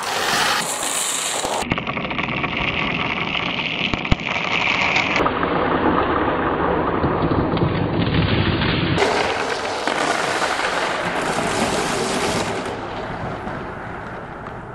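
Masses of marbles rolling and clattering against each other and a wooden-framed pegboard slide in a dense, continuous rattle. The rattle changes abruptly a few times and fades toward the end.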